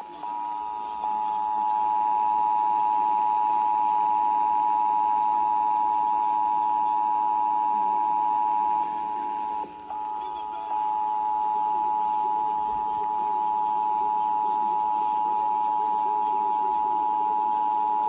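Emergency Alert System two-tone attention signal, 853 and 960 Hz sounding together, from portable radio speakers. It holds steady for about nine seconds, breaks off for a moment, then sounds again.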